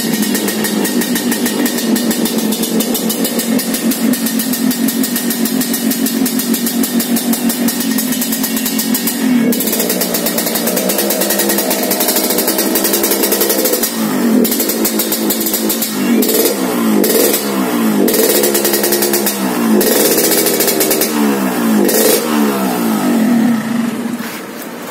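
Motorcycle engine running steadily with a rough, snoring ('ngorok') note, then blipped on the throttle about six times in the second half, its pitch rising and falling with each rev.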